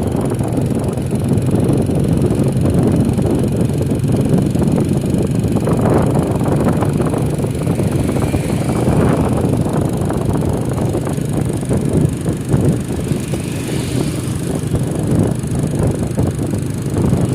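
A vehicle engine running steadily on the move, with wind buffeting the microphone.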